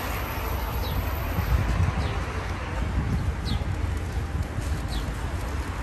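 Outdoor ambience: a steady low rumble of wind and road traffic, with a small bird giving short, high, falling chirps every second or so.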